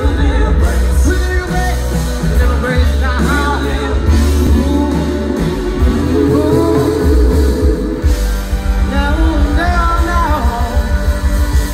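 Live pop band playing a song, with drums, bass, electric guitars and keyboard under a male lead vocal, heard from the audience.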